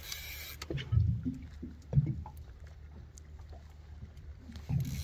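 Water slapping against the hull of a small boat, in dull low thumps about a second apart at first and again near the end, over a steady low rumble and with a gust of wind on the microphone at the start.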